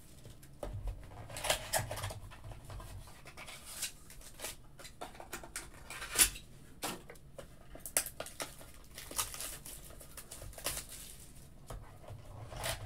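Trading cards and a cardboard card box being handled on a tabletop: irregular light clicks, taps and rustles.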